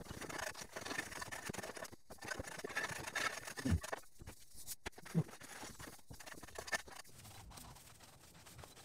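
Dry grass and brush crackling and rustling underfoot and by hand as trash is gathered from an overgrown yard, with scattered clicks and a couple of dull thumps in the middle. Quieter for the last couple of seconds.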